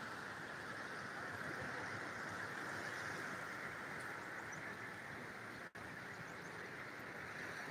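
Steady wash of small surf breaking along a shallow sandy beach, an even hiss with no distinct events. The sound cuts out for an instant a little before six seconds in.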